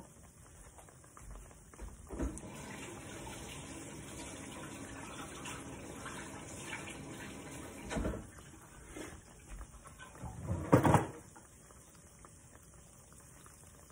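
Fry bread and a dough-wrapped hot dog sizzling and crackling as they fry in hot oil in a skillet, quieter over the last few seconds. Two short knocks sound, one about eight seconds in and a louder one near eleven seconds.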